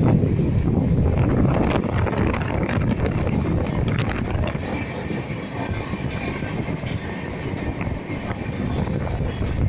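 Passenger train coaches running at speed: a steady, loud rumble and rattle of the wheels on the rails, with a few faint clicks.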